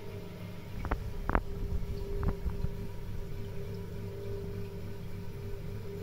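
Potter's wheel motor humming steadily while it spins wet clay being thrown. A few short knocks sound about one to two and a half seconds in.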